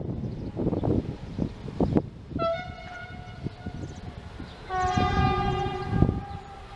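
Two steady horn blasts, the first higher and short, the second lower and longer, over a run of footsteps.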